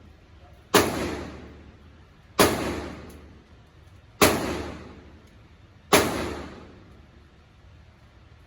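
Four single gunshots from a firearm, evenly spaced about 1.7 seconds apart, each followed by about a second of reverberation dying away.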